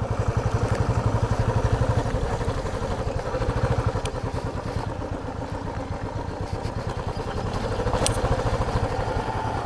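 Royal Enfield Classic 350's single-cylinder engine running at low speed as the bike rolls slowly over rough dirt ground, a steady rapid beat. A couple of light rattles from the bike.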